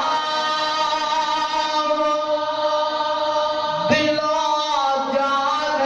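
A man sings a manqabat (Urdu devotional poem) in long, drawn-out held notes into a handheld microphone. His voice glides upward briefly about four seconds in, then settles on a new note.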